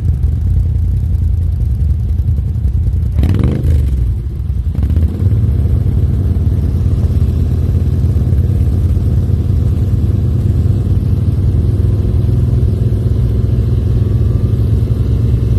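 ATV engines running close by, a steady low rumble, with a short loud burst about three seconds in.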